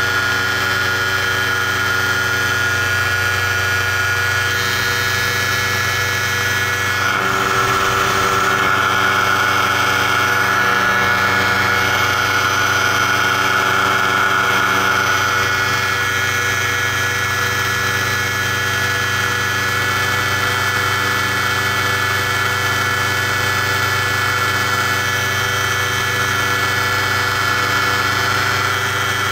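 Paramotor's two-stroke engine and propeller running steadily in flight, a little louder for several seconds about a quarter of the way in.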